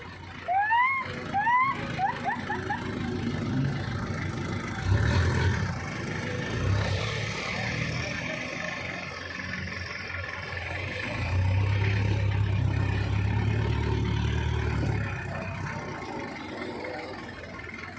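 Small engine running, its low hum swelling and fading, loudest for a few seconds past the middle. A few short rising chirps sound near the start.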